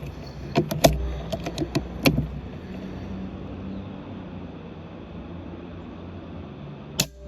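A few small handling clicks, then a single sharp shot from a .25 calibre air rifle about seven seconds in, over a steady background hiss.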